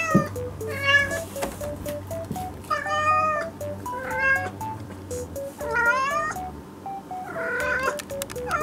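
A cat meowing about six times, a few of the meows drawn out, over light background music made of short, evenly stepped notes.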